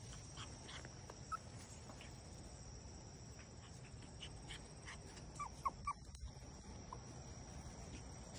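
Goldendoodle puppies giving a few faint, short whimpers: one about a second in and a quick cluster around the middle, over the steady high drone of insects.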